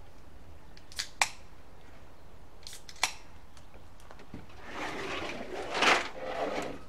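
Sharp clicks from red soda cans being handled, two about a second in and one near three seconds. Then a rushing, rattling slide of crushed gravel shifting inside a rusty steel gas tank from a 1965 Ford Falcon van as the tank is tipped up on end; this is loose stone scouring the rust inside.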